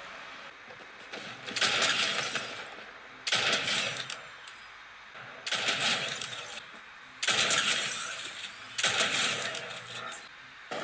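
Shooter-game sound effects: five loud, sudden crashing bursts, each dying away over about a second, coming roughly every one and a half to two seconds.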